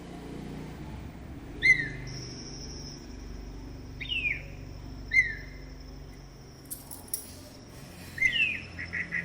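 Crane calling: several short, sharp calls, each dropping in pitch, a second or more apart, with a quick cluster of calls near the end.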